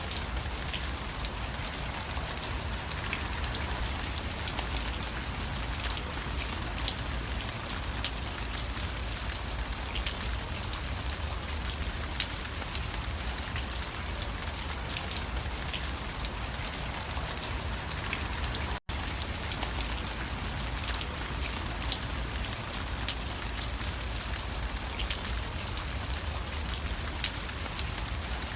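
Steady rain with scattered sharp drop ticks, and a momentary dropout to silence about two-thirds of the way through.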